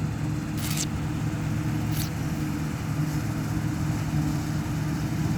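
Combine harvester's diesel engine running at a steady pitch as the machine comes past cutting wheat, with two brief high hisses about a second and two seconds in.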